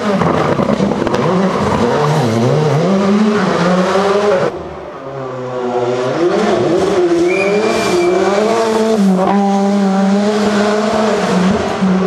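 Rally car engines at full throttle: a Škoda Fabia R5's turbocharged four-cylinder accelerating and shifting up and down through the gears, then, after a sudden cut about four and a half seconds in, a Ford Sierra Cosworth's turbo four-cylinder approaching and pulling hard through the gears.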